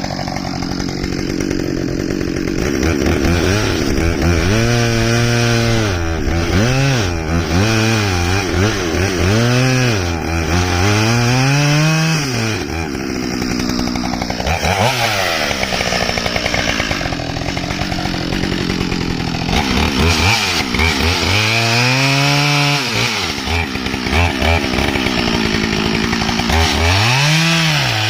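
Husqvarna 572XP two-stroke chainsaw running hard, most likely cutting wood. Its engine speed rises and falls again and again as the throttle is worked and the chain takes load, with steadier stretches in between.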